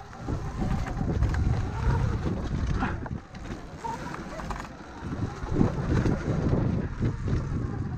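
Wind buffeting the microphone over the rumble of a Sur-Ron electric dirt bike riding a dirt trail, rising and falling unevenly.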